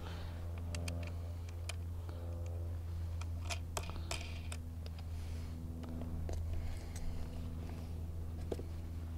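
Scattered small metallic clicks and taps as nuts and washers are threaded by hand onto the bolts of a raft's motor mount bracket, over a steady low hum.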